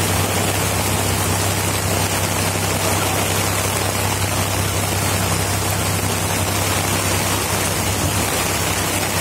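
Heavy rain falling on an umbrella overhead and on the road, an even, unbroken hiss, with a steady low hum from stopped traffic beneath it.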